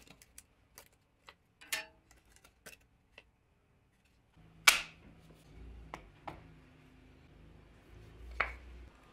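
Light clicks and taps of thin laser-cut plywood pieces being lifted off a laser engraver's steel bed. Then a sharp knock as a plywood template is set down on a wooden workbench, followed by a few softer knocks and one more firm knock near the end.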